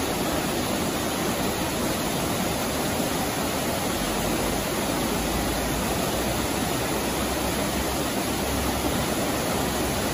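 Muddy floodwater rushing over a low weir and churning through whitewater rapids, a steady continuous rush of water.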